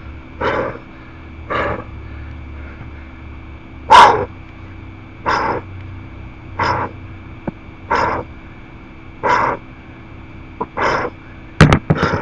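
A man breathing out hard with each pull of a 70 lb dumbbell bent row, in a steady rhythm of about one breath every 1.3 seconds. The breath about four seconds in is the loudest.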